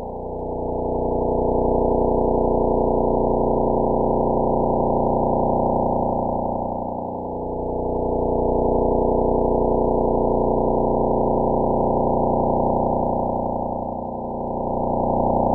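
Space sound sonification: a low, dense drone of many steady tones held together, swelling and dipping slowly about every seven seconds.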